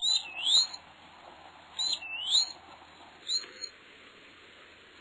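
Birds chirping: short whistled chirps that swoop down and back up, coming in three bursts about a second and a half apart.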